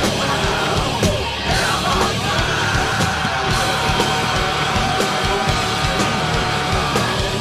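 Heavy rock band recording: distorted guitars, bass and drums, with yelled vocals. A long held note runs through the middle.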